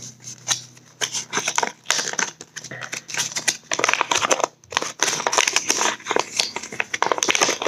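Folded paper leaflet being unfolded and handled: irregular crinkling and crackling, with a brief pause about halfway through.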